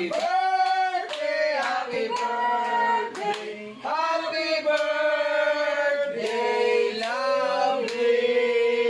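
A small group singing a birthday song together to a lit birthday cake, with hand claps scattered through the song.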